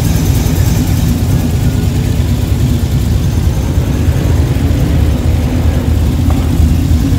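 Cammed 5.3-litre LM7 V8 idling steadily through long-tube headers, an X-pipe and Magnaflow mufflers, a deep, even exhaust rumble with no revving.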